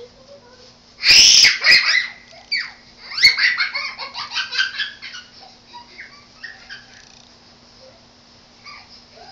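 Young children shrieking and laughing while running about: one loud shriek about a second in, then a quick run of high-pitched giggles that fades to scattered small cries.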